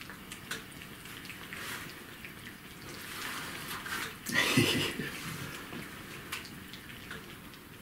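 A cat licking mayonnaise off a saucer: a run of small wet licking and smacking clicks. About four and a half seconds in there is a brief, louder voiced sound.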